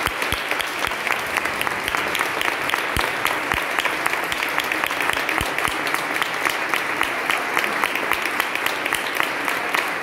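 Audience applauding: a steady run of many hands clapping.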